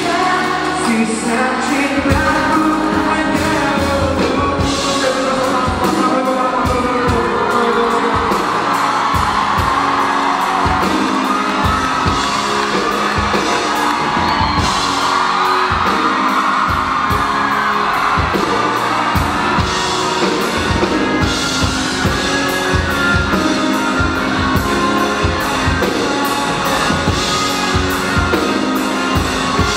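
Music with a singing voice over a steady drum beat.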